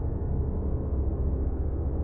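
Low synthesizer drone held steady, a deep rumbling pad with faint upper overtones and no attack or change, used as a suspense atmosphere.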